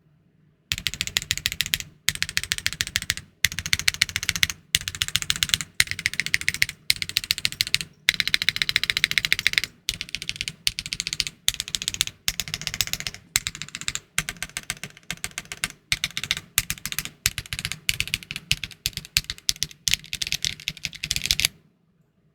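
Typing on a Luminkey 65 mechanical keyboard with Gateron Sylva linear switches, a polycarbonate plate, no foam and PBTfans Resonance R2 keycaps: a rapid, clacky run of keystrokes in bursts separated by brief pauses. It starts about a second in and stops shortly before the end.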